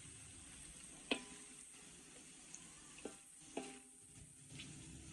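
Kuih siput being stir-fried in a wok: a spatula stirring through sizzling oil and spiced sauce. The spatula knocks against the wok three times, each knock ringing briefly, and the first, about a second in, is the loudest.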